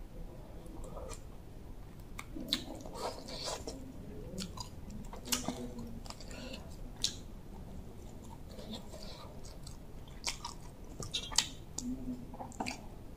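A person chewing close to the microphone, working through a mouthful of fresh greens and bamboo-shoot curry, with short wet smacks and mouth clicks scattered through.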